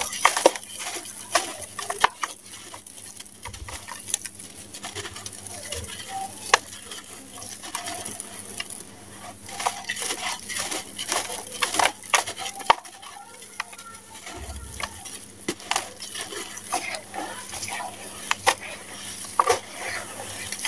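Hands squeezing and crumbling damp sand-cement clumps over a plastic tub of water. The sound is irregular gritty crunching and crackling, with sharp clicks as crumbs drop into the water.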